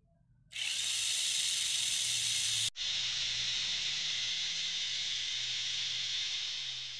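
Tamiya Mini 4WD car on an FM-A chassis running free in the hand, its small electric motor and gears giving a steady high whir as the wheels spin. It starts about half a second in, breaks off for an instant near three seconds, and fades near the end.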